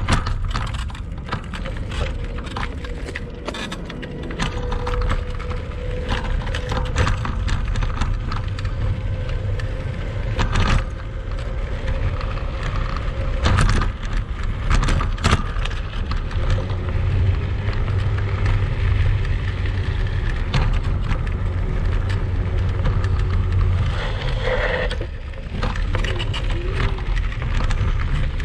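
Kugoo Max Speed electric scooter ridden over rough, sandy off-road ground: a steady low rumble with constant rattling and clattering, and sharp knocks over the bumps. The rattles come from loose, play-ridden parts, which the owner sets out to trace to the rear shock, the seat and the front suspension fork.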